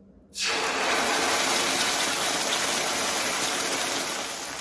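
Barbecue sauce sizzling as it is poured into hot olive oil in a cast-iron skillet. The sizzle starts suddenly about half a second in and holds steady, easing a little near the end.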